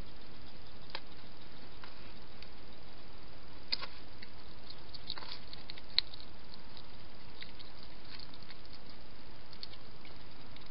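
Steady hiss with scattered small clicks and ticks from a hedgehog moving into a plastic feeding box and feeding at its bowl, the sharpest click about six seconds in.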